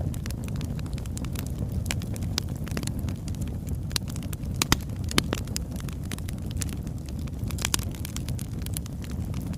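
Birch logs burning, crackling with many irregular sharp pops over a steady low rush of flame. Two louder pops come near the middle.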